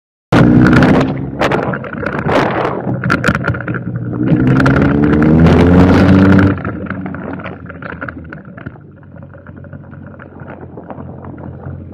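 Kawasaki ZX-14R's inline-four engine running loud under throttle, its pitch climbing for a couple of seconds, then dropping off suddenly about six and a half seconds in to a quieter low running sound.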